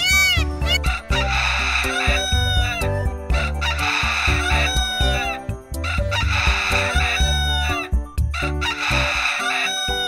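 A large ground bird giving four harsh, crowing calls about two and a half seconds apart, over background music.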